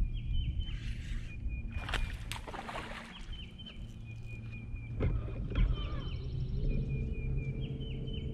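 A hooked largemouth bass being fought and landed from a bass boat: several splashes and knocks, over a steady low hum, with repeated thin high chirps.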